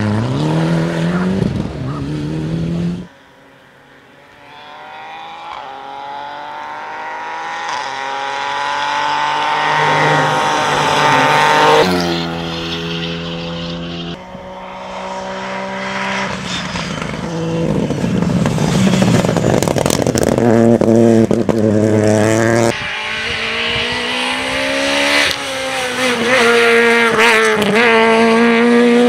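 Rally cars at full throttle on a tarmac special stage, each engine climbing steeply in pitch through the gears with sharp breaks at the upshifts as the car comes past. The sound changes abruptly a few seconds in and again near the end as one pass gives way to the next.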